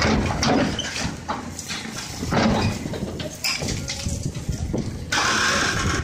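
Tracked excavator's engine and hydraulics working as its bucket pushes on a large marble block, with irregular knocks and scraping of stone. A harsher, steady hiss sets in for most of a second near the end.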